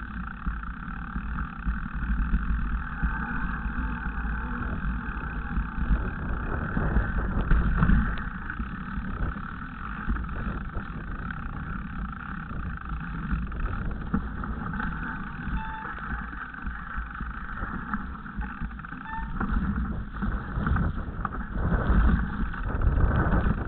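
Mountain bike riding down a rough, wet grassy trail: wind rumble on the microphone with the rattle and irregular knocks of the bike going over bumps.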